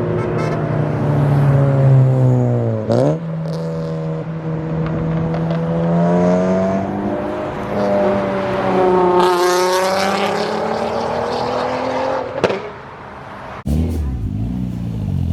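Tuned car engine revving under acceleration: its pitch sags, jumps back up about three seconds in, then climbs again. A single sharp pop comes near the end, just before an abrupt cut to another car's engine.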